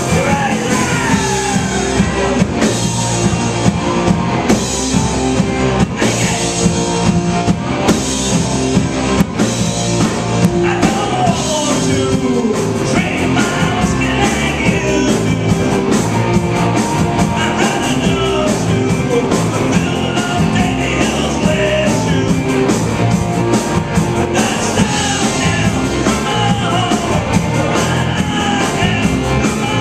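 Live glam rock band playing loud and without a break: electric guitars over a steady drum beat, with sliding guitar lines.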